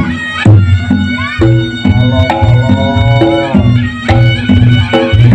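Reyog Ponorogo ensemble music: a reed pipe plays a wavering, sliding melody over regular low drum and gong strokes.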